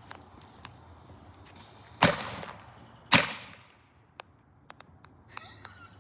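Two firecrackers banging about a second apart, each a sharp crack with a short fading tail, followed by a few faint clicks and a brief hiss near the end.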